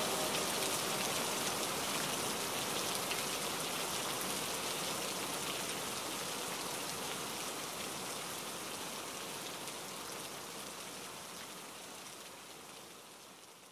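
Steady rain pattering on water, a dense hiss of drops that fades out gradually toward the end.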